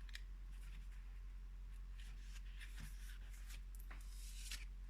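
Faint, intermittent rustling and light ticks of paper being handled, as oracle cards and their guidebook are looked through to find a numbered card.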